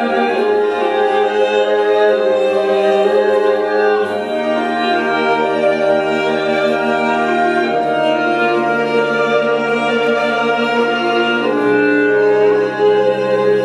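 Music played for a dance: slow, held chords that move to a new chord about every four seconds.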